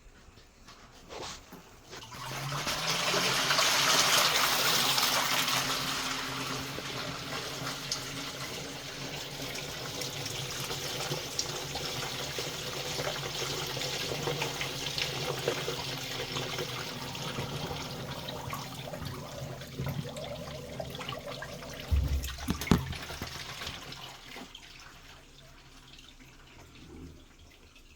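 Water running into an LG washing machine, starting about two seconds in, loudest early on and slowly easing, over a low steady hum. A short low thump comes about two-thirds of the way through.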